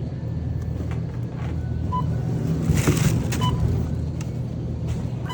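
Two short electronic beeps about a second and a half apart, like a checkout barcode scanner, over a steady low hum, with a brief rustle between them.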